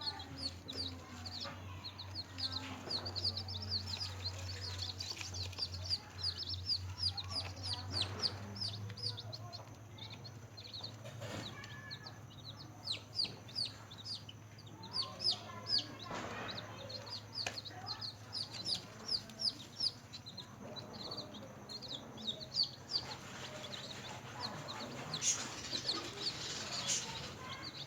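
Newly hatched chicks peeping without pause: many short, high, downward-sliding peeps in quick succession. A low steady hum runs beneath, stronger in the first third.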